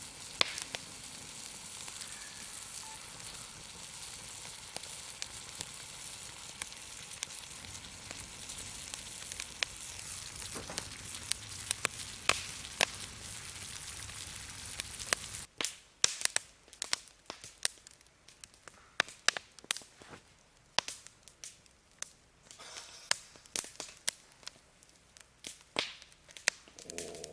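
Steak sizzling steadily over the heat, a constant hiss with scattered pops. About halfway through the hiss cuts off abruptly, leaving a wood fire crackling with frequent sharp snaps and pops over a quiet background.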